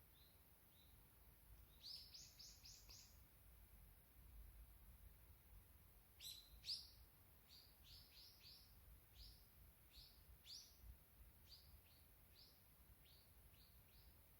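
A small songbird chirping with short, high notes: a quick run of about five near two seconds in, then a longer series of single chirps, roughly two a second.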